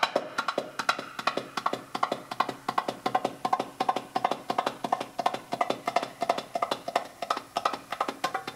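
Metal-shelled darbuka (Middle Eastern goblet drum) played solo with the fingers: a fast, even stream of sharp strokes, each with a short ring.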